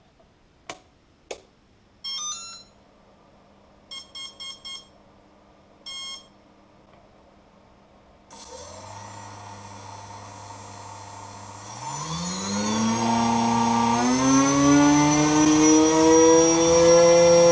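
Two clicks as power is switched on, then the brushless speed controller plays its rising start-up tones and a series of short beeps as it arms. About eight seconds in, a small brushless outrunner motor (2212, 2200KV) with a propeller starts with a steady high whine, and from about twelve seconds it spins up, its pitch rising and getting louder.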